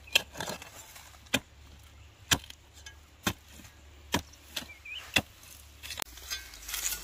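Sharp blows of a hand tool, about one a second, as a fence is broken up.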